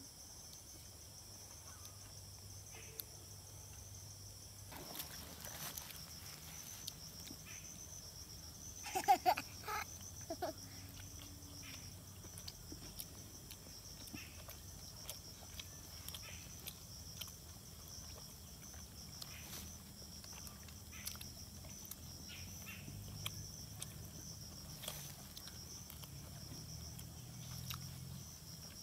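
Steady high-pitched drone of insects in the surrounding woodland, with scattered faint clicks and rustles. A brief, louder pitched sound comes about nine seconds in.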